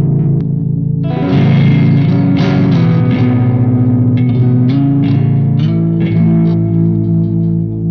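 Ibanez Universe UV7P seven-string electric guitar played with a distorted tone: held chords, then a run of struck chords and notes, with a brief gap in the playing about a second in.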